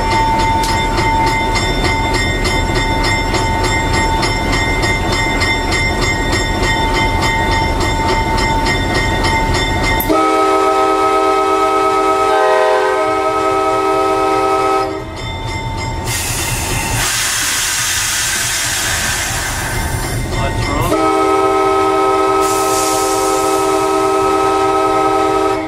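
EMD GP-series diesel locomotive running as it rolls slowly, then its multi-note air horn sounds a long blast about ten seconds in and another about twenty-one seconds in, with a hissing rush between them. The horn is sounded as the train approaches a road crossing.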